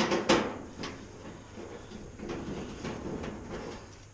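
Two sharp metallic clicks, then softer clicking and scraping as a multi-tool screwdriver works screws out of a Kenmore 110 dryer's sheet-metal cabinet.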